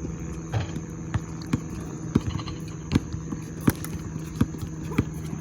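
A basketball being dribbled on a hard court, sharp bounces about every two-thirds of a second, over a steady low hum.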